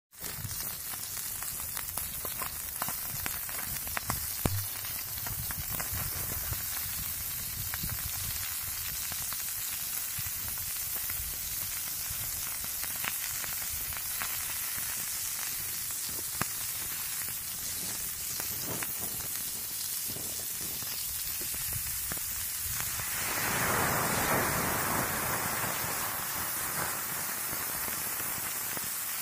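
Food sizzling in a metal pan over an open wood fire: a steady frying hiss with scattered crackles and pops. About 23 seconds in, the sizzle swells louder for a few seconds.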